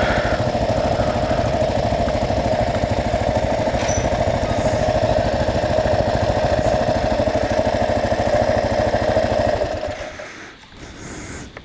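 2009 Kawasaki KLR 650's single-cylinder four-stroke engine running steadily with an even pulsing beat, then shut off about ten seconds in.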